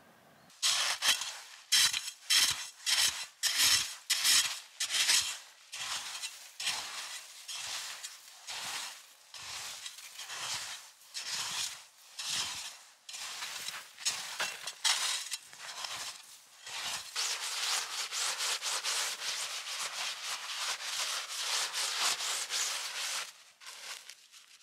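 Snow being worked by hand: a run of crunching, scraping strokes about two a second, then a longer, nearly continuous scrape for several seconds before it stops near the end.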